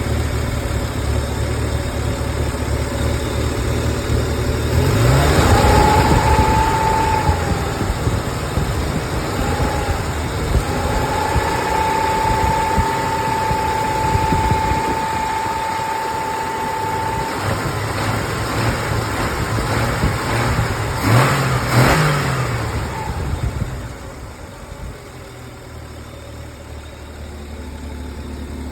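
Ford 300 inline-six engine idling and revved twice, the engine note rising each time; it makes a rattle noise that the owner is trying to track down. A steady high whine sounds for several seconds after the first rev.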